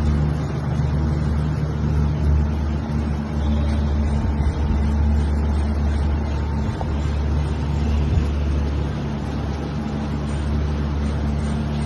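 Steady low hum of factory machinery running without change.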